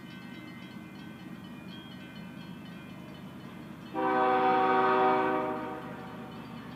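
Air horn of CN 2231, a GE ES44DC diesel locomotive on an approaching train, sounding one loud chord blast of about two seconds, starting about four seconds in and fading away. Under it runs the train's steady low rumble.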